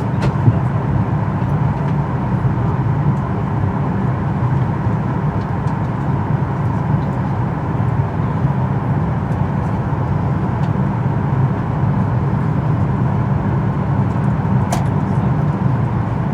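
Steady low drone inside a Boeing 737-800's cabin on the ground, with a thin steady whine above it and an occasional faint tick.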